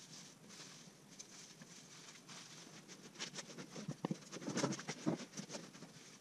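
Cloth rubbing and scuffing over a turned pecan bowl as it is wiped down by hand, faint and scratchy, with light clicks and knocks from handling the bowl in the second half.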